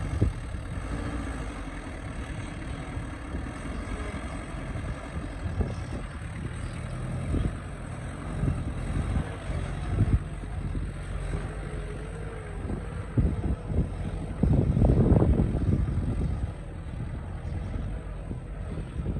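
Excavator's diesel engine running under load, its pitch rising and falling as the hydraulics work, with scattered knocks from the bucket working the rocks. A louder rush of noise comes about three-quarters of the way through.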